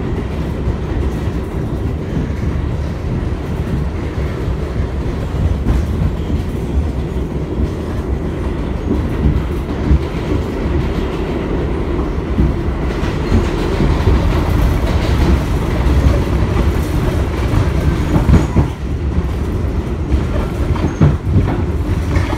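Kawasaki-built R62A subway train running along the track, heard on board: a steady rumble with wheels clicking over rail joints. A few sharper knocks come near the end.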